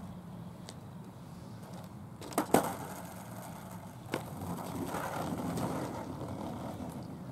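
Skateboard on asphalt: two sharp clacks of the board about two and a half seconds in, a lighter click about a second later, then the wheels rolling over the pavement, easing off near the end.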